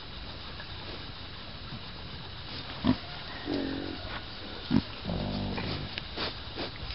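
Pot-bellied piglets grunting close to the microphone: a short grunt about halfway through and a longer one near the end, with a few short, sharp snuffling sounds around them.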